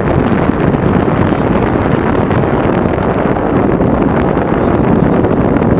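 Fan blowing hot air through a car air-conditioning radiator used as a heat exchanger, a loud steady rush of air, with the air stream buffeting the microphone.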